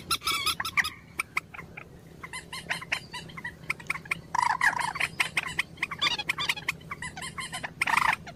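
Rustling and knocking as a caught bird is handled in the net, with loud bird calls around the middle and near the end.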